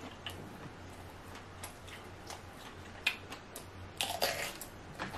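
Close-miked eating: small wet mouth clicks while chewing, then a crunchy bite into a whole cucumber about four seconds in.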